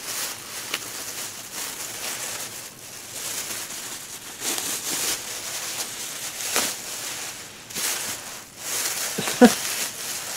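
Packaging rustling and crinkling in bursts as a fragile parcel is unwrapped by hand. A brief sharp sound comes near the end.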